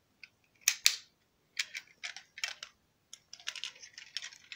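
A run of light clicks and clatter from handling small die-cast toy cars, with two sharp clicks about a second in and quicker, denser clattering near the end.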